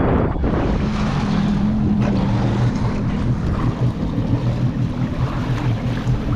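Sea-Doo GTR 230 jet ski engine running steadily at low speed, with water noise and wind buffeting the microphone.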